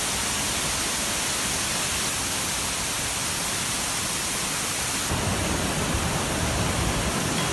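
Steady rushing hiss of a waterfall. About five seconds in the sound shifts, with more low rumble underneath.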